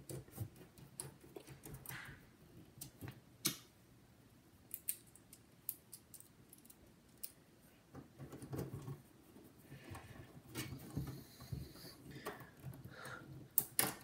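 Screwdriver driving the side-panel screws into a desktop PC's steel case: faint scattered clicks, taps and short scrapes of the driver bit, screws and hand on the sheet metal.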